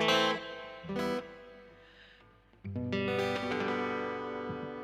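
Acoustic guitar strummed: three chords, the second about a second after the first and the third after a longer gap, each left to ring, the last held and slowly fading.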